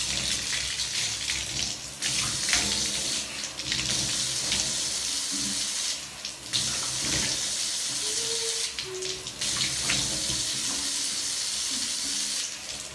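Water running from a tap into a sink as she wets her face, the steady rush breaking off briefly every couple of seconds.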